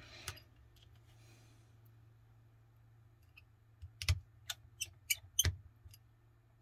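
Small sharp clicks of a precision screwdriver working tiny screws into an iPhone 14 Pro's internal metal bracket, about six of them starting some four seconds in after a quiet stretch. A faint low hum runs underneath.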